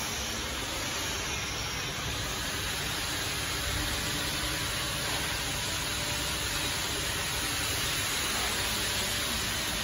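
Steady, even hiss over a low rumble from a running tunnel furnace for baking dye-sublimation mugs.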